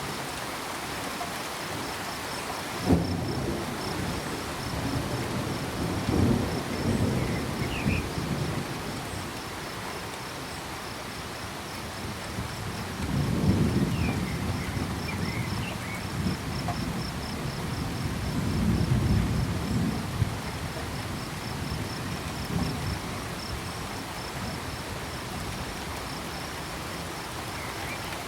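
Steady rain with rolling thunder: a sharp crack about three seconds in, followed by rumbling, and further long rolls in the middle and later on. Under it a cricket chirps in an even, rapid pulse, and a few short frog calls come through.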